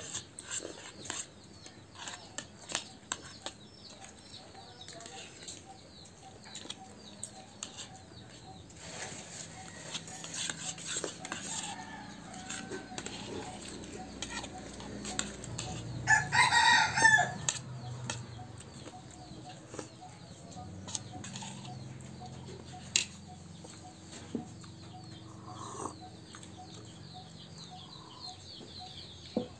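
Spoons clicking and scraping on ceramic plates during eating. A rooster crows once, loudly, about halfway through.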